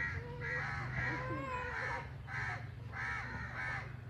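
Crows cawing: a run of short, harsh caws, about two a second, over a steady low hum.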